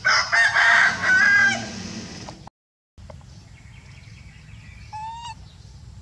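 A rooster crowing loudly and harshly for about two seconds, then a short faint call near the end.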